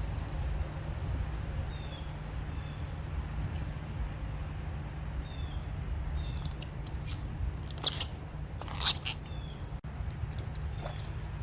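Short, high chirps of a small bird, repeating every second or two, over a steady low rumble. Two sharp clicks come near the end.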